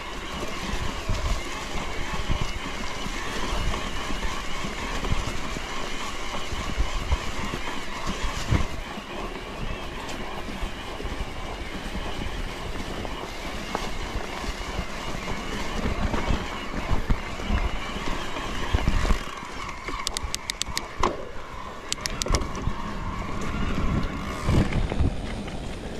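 Wind buffeting a GoPro's microphone on a moving bicycle, with rolling tyre and road noise and low rumbles from gusts and bumps. A short run of sharp clicks comes about twenty seconds in.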